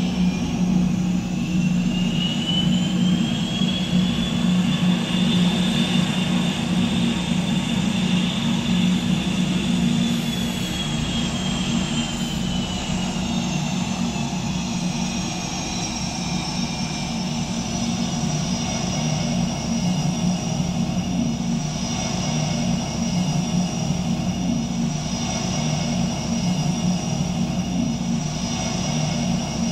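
F/A-18 Hornet's twin General Electric F404 turbofans running at taxi power: a high turbine whine over a steady low hum. The whine rises in pitch over the first few seconds, sinks again around the middle, then holds steady.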